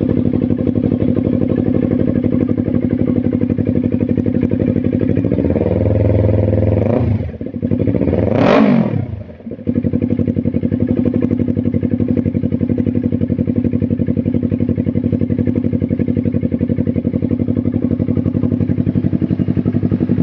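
Yamaha R3's parallel-twin engine idling through a modified aftermarket muffler. It is revved up a little about five and a half seconds in, then given a sharp throttle blip that rises and falls quickly near the eight-second mark, before settling back to a steady idle.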